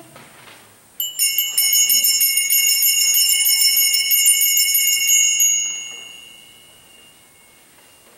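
Altar bells, a set of small hand bells, shaken rapidly for about four and a half seconds starting about a second in, then ringing on and fading away. They are rung at the elevation of the chalice during the consecration.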